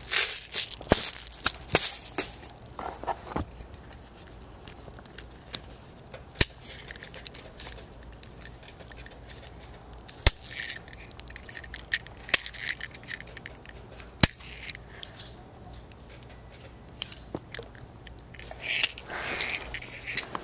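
Handling noise from a handheld camera: rustling and scraping close to the microphone, loudest at the start and again near the end, with a few sharp clicks between.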